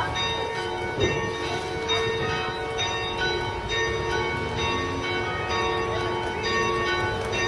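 Church bells ringing, several bells struck again and again so that their tones overlap and keep sounding.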